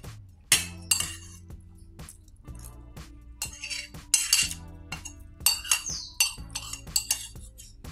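Cutlery clinking against dishware in a string of irregular strikes as someone eats, over steady background music.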